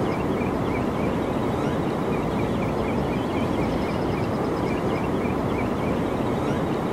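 Rushing floodwater from a swollen lake and creek, a loud, steady roar with no change. Faint, short, high chirps repeat over it at times.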